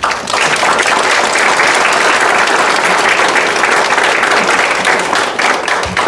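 Audience applauding. The clapping starts loud all at once and thins out near the end.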